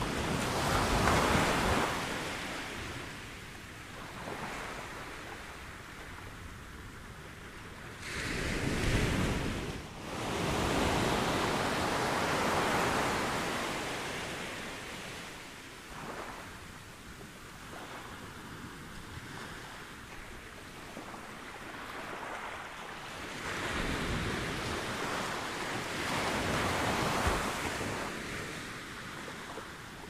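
Small ocean waves breaking and washing up the beach. The surf rises and falls, with louder surges near the start, around a third of the way in and again near the end, and a softer wash between.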